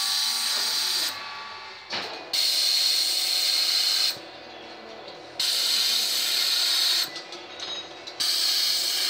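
Vacuum tester hissing in four bursts of about a second and a half each, with short pauses as the suction cup is moved from valve to valve, and a light knock about two seconds in. It is a vacuum check of the seal of freshly lapped valves in a Mercedes OM651 diesel cylinder head.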